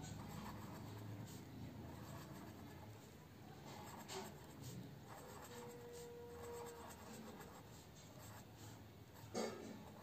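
Faint taps and scratches of a marker pen dotting on paper.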